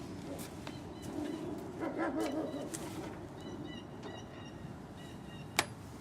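Handling noise as a subwoofer box is pulled out of a car: scattered knocks and rustling, with a sharp click near the end. Short high chirps, like birds, come in faintly in the middle.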